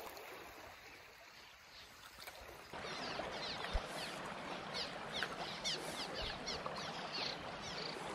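Creek water running and trickling. About two and a half seconds in, the sound suddenly gets louder, with many short, high blips over the rush of the water.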